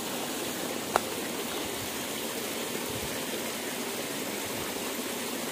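Steady rush of flowing water, with one short click about a second in.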